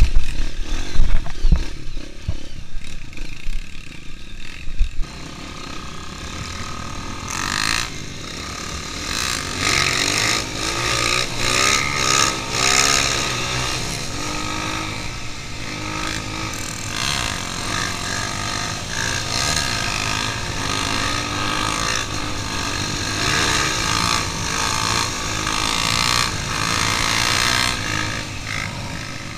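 Honda CRF 230 trail bike's single-cylinder four-stroke engine running on the move, with other dirt bikes alongside, its pitch rising and falling with the throttle. Heavy thumps and knocks come in the first few seconds, then the engine runs steadier.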